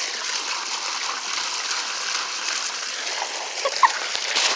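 Running water: a steady, even splashing rush. A brief high squeak sounds just under four seconds in.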